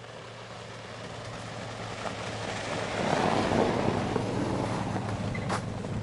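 Nissan SUV driving up and passing close by on a snow-covered track, its engine and tyres on the snow growing louder to a peak about halfway through, then easing as it pulls away.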